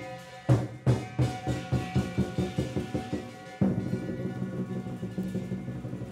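Lion dance percussion: a few loud crashing strikes about half a second in, then a fast run of drumbeats and another loud strike about three and a half seconds in, with a steady ringing tone beneath.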